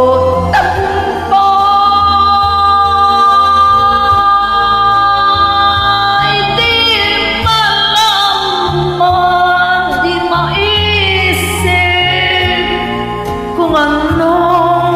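A singer sings a slow Tagalog ballad over a karaoke-style backing track, holding long, slightly wavering notes.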